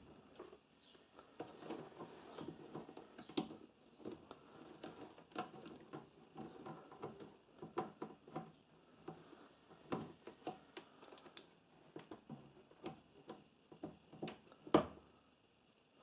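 Multimeter test probes and wires being handled inside an opened MIG welder: irregular faint clicks, taps and rustles, with one sharper click near the end.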